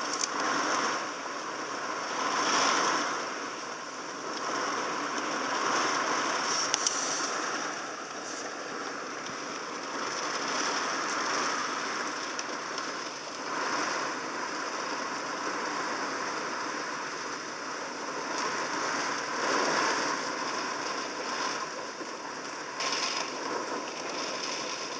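Heavy hurricane rain pouring down in strong wind gusts, the rush swelling and easing every few seconds, with one sharp click about seven seconds in.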